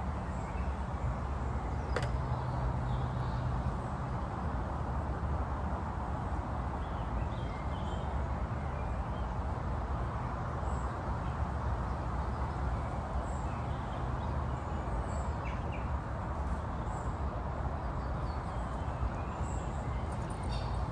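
Steady outdoor background rumble with faint, scattered chirps of small birds, and a single sharp click about two seconds in.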